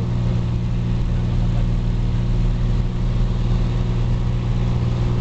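Cessna 182's piston engine and propeller at full takeoff power, a loud steady drone heard inside the cabin during the takeoff run and lift-off.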